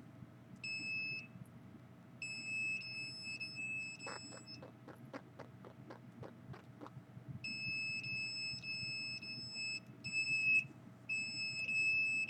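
Handheld signal detector's high-pitched alarm tone, switching on and off in stretches of about half a second to two and a half seconds, which the user reads as a detected microwave signal. In the middle, a run of about a dozen short, lower blips comes at about four a second.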